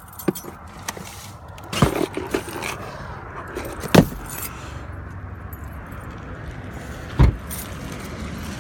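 A car's steady low running and road noise, with several sharp clicks and knocks on top: a cluster about two seconds in, the loudest knock about four seconds in, and another near the end.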